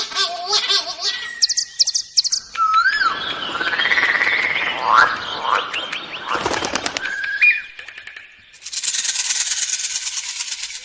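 A run of different bird calls and songs, one after another, that change abruptly several times: stacked harmonic calls, high whistles, sweeping notes and clicks. Near the end comes a fast, pulsing, high-pitched buzz lasting about two seconds.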